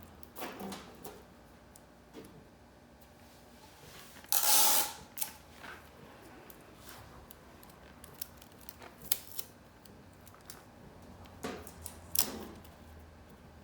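Scattered clicks and taps of objects being handled, with one louder scrape lasting about half a second roughly four and a half seconds in.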